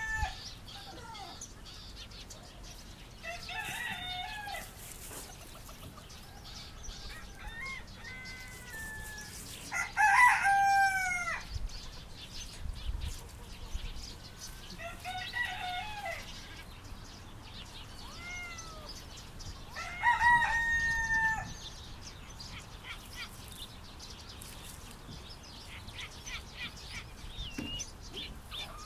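Chickens calling: a rooster crows loudly twice, about ten and twenty seconds in, with shorter, softer calls from the flock in between.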